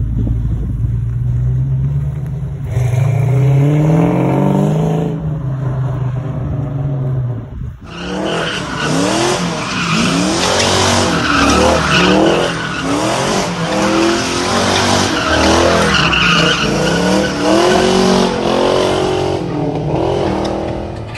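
A car engine revving, its pitch rising and falling. About eight seconds in the sound changes abruptly to rapid revving and wavering tyre squeal, as in skidding.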